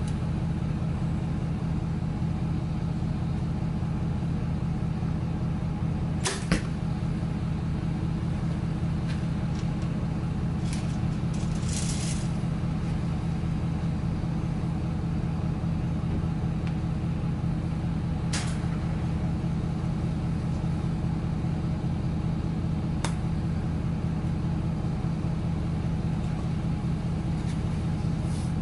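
A Mathews Triax compound bow fired once, about six seconds in: a single sharp snap as the string is released. A few lighter clicks and rustles of arrow handling follow, over a steady low hum.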